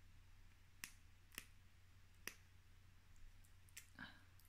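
Faint sharp clicks of small cosmetics packaging being worked open by hand, three clicks spaced about half a second to a second apart, then a brief soft rustle near the end.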